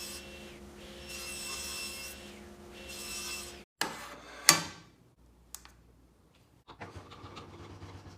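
Walnut plywood being worked in a woodshop: three swells of rasping, rubbing strokes on wood over a steady low hum, then a sharp knock about four and a half seconds in, followed by a few light knocks and clicks.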